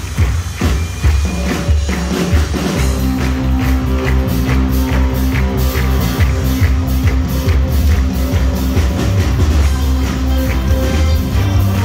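Loud backing music for the act, with sustained bass chords and a regular beat that settles in about three seconds in.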